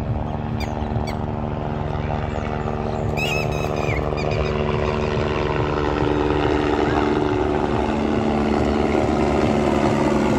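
Light single-rotor helicopter flying in low: a steady rotor and engine drone that grows gradually louder as it approaches. A brief high-pitched call sounds about three seconds in.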